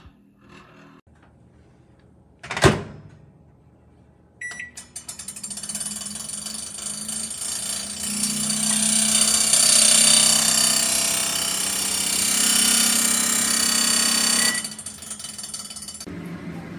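A door shuts with a sharp knock, a short beep sounds, then a Toshiba countertop microwave oven runs with a loud buzzing hum that swells for about ten seconds and cuts off suddenly with another beep.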